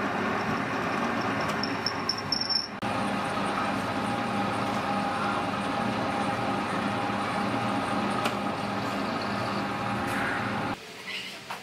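Metal lathe running, turning a steel shaft while the cutting tool turns down a step in it: a steady machine hum with a held tone. Near the end the lathe sound stops and a few light metal clicks follow.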